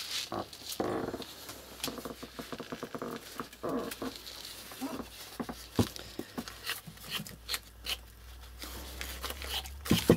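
A knife scraping and peeling a dirty carrot over newspaper, heard as scattered scrapes and sharp clicks. A few short voiced sounds come in the first four seconds.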